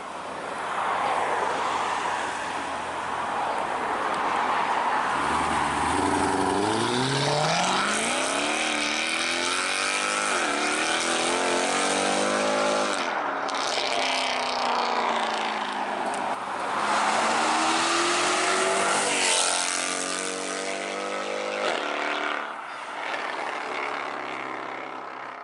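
Mercedes-AMG C63 V8 with a loud custom exhaust accelerating hard, the engine note rising in pitch through several gears with a drop at each change, then fading near the end.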